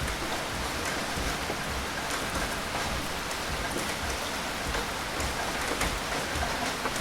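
Steady rain falling on a surface, an even hiss with scattered droplet ticks.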